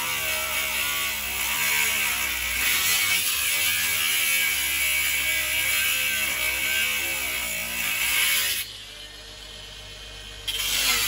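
Electric angle grinder cutting into a sheet-metal panel: a steady, loud grinding hiss whose motor pitch wavers as the disc bites. About eight and a half seconds in it drops away for about two seconds, then picks up again.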